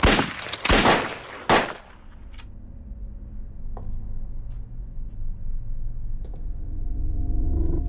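Gunfire in a film gunfight: a few loud shots in the first second and a half, each ringing out briefly, followed by a low steady rumble.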